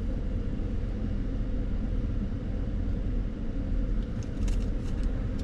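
Steady low rumble of a vehicle's engine and road noise heard from inside the cab while driving, with a few faint clicks near the end.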